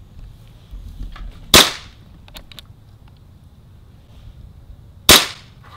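Two shots from an Elite Force 1911 CO2 gas blowback airsoft pistol, about three and a half seconds apart, each a single sharp crack. A few faint clicks come between them.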